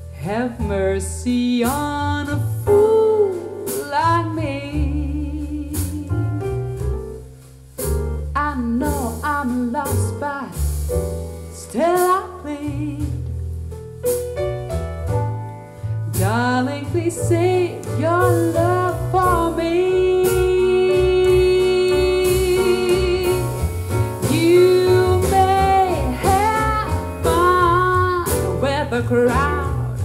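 A song with a singer over instrumental backing, played through a pair of JBL Studio 280 three-way floorstanding speakers and picked up in the room. The melody includes one long held note about two-thirds of the way through.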